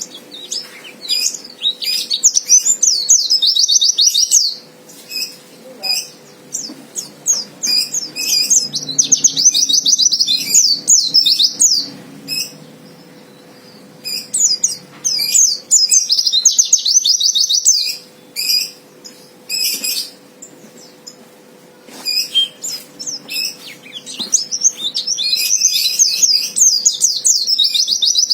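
White-eye (pleci) singing its fighter song: fast, high twittering phrases a few seconds long, about four times, with short single chirps in between. It is a fighter male's song, the kind used to goad a rival pleci into singing back.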